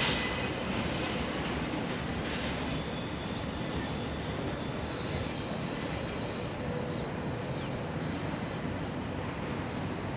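Freight train rolling by as a steady, even rumble with no distinct clacks or horn, easing slightly in level early on.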